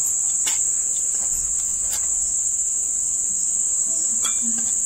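A steady high-pitched trill holds throughout, with a few faint scrapes of a hand rubbing oil into maida flour in a bowl.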